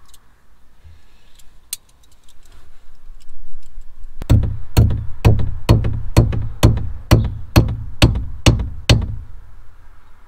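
A cable terminal being crimped onto a wire: a run of about eleven sharp, evenly spaced knocks, about two a second, each with a low thud. Before them there are a few light clicks of handling.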